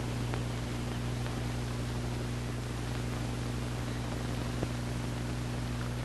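Steady low electrical hum with a constant hiss over it, with a faint tick about four and a half seconds in.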